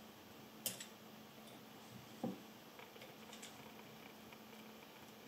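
Faint handling clicks of a precision screwdriver and tweezers against small metal lens parts: a sharp tick under a second in and a duller knock about a second and a half later, over a faint steady hum.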